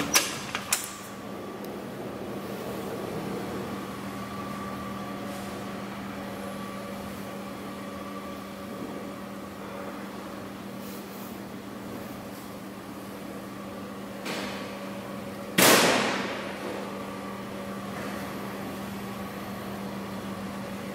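Enclosure door latch of a 360 kW silent diesel generator set clicking twice as it opens, then the steady hum of the diesel generator running inside. One loud knock comes about three-quarters of the way in.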